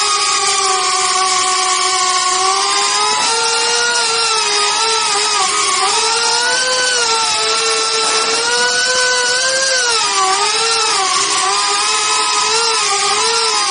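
Small quadcopter drone's four guarded propellers whining in flight, heard from a camera mounted on the drone. The whine is steady at first; from about three seconds in, its several pitches drift apart and wobble up and down as the motors change speed to steer, settling again near the end.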